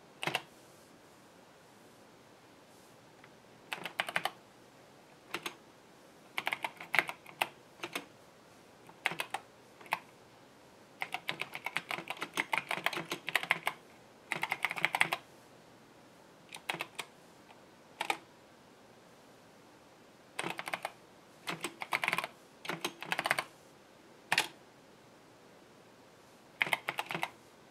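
Typing on the Epson HX-20 portable computer's keyboard: keys clacking in short quick runs broken by pauses of a second or two.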